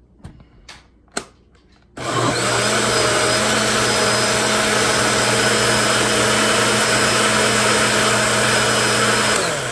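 A roughly 30-year-old countertop blender, blending a liquid egg and cheese mixture. After a single click about a second in, it switches on about two seconds in and runs loud and steady for about seven seconds, then is switched off near the end, its motor winding down in pitch.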